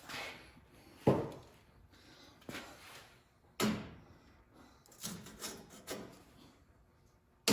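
Hand scraping at the steel frame of a 1961 Cadillac from underneath: several separate scrape-and-knock strokes a second or two apart, with a sharp click near the end.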